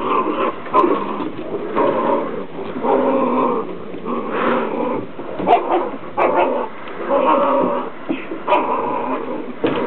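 Six-week-old Portuguese water dog puppies growling and yipping as they play, a string of short calls one after another.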